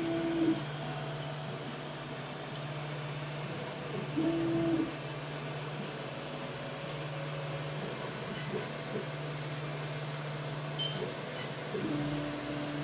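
Homemade CoreXY 3D printer with TMC2209-driven stepper motors: a steady fan hum, with the steppers giving short pitched whines that glide in and out as the print head moves, twice briefly and then a held whine near the end.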